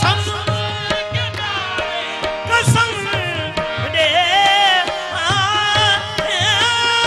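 Qawwali ensemble performing a naat: a harmonium melody and tabla rhythm under a lead male voice singing ornamented, wavering phrases.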